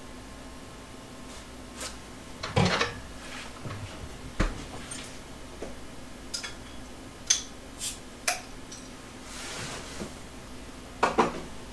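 Off-mic clatter of someone fetching a bottle of beer: about half a dozen scattered knocks and clinks of glass and cupboard-type handling, with a short hiss in between, over a steady low hum.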